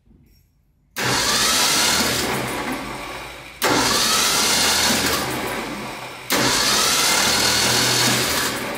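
A 1974 Ford F100's 302 V8 being cranked by its starter three times in a row, each for about two and a half seconds. It turns over without firing, since the spark plugs are not hooked up.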